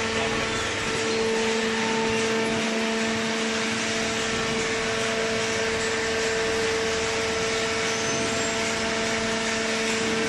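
Hydraulic paper baler's electric motor and pump running with a steady hum.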